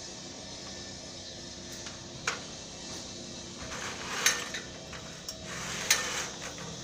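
A ladder being shifted and set against a tree: three sharp knocks, about two seconds in, a little past four seconds and near six seconds, with scraping around the last two.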